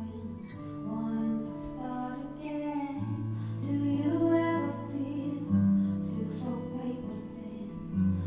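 Recorded pop song with a female singer over sustained bass notes that change every couple of seconds.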